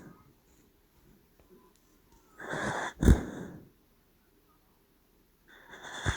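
Sleeping dachshund snoring: a drawn-out raspy breath about two seconds in that ends in a short, loud snort, and another snoring breath starting near the end.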